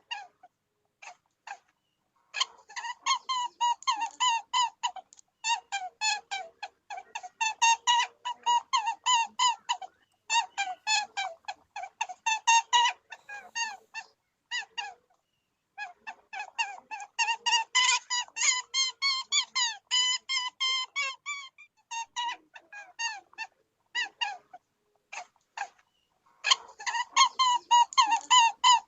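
Rabbit squeaking: rapid runs of short, high-pitched squeaks, several a second, broken by brief pauses.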